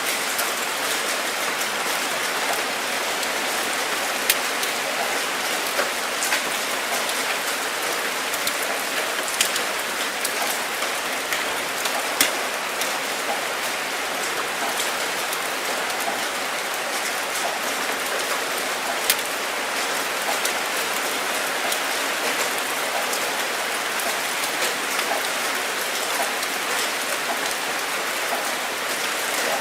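Steady rain falling, an even hiss with scattered drop ticks and now and then a single louder drip.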